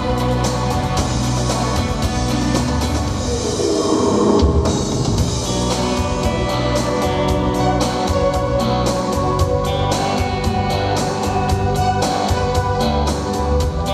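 Instrumental music with a steady beat, no singing: the closing bars of a song.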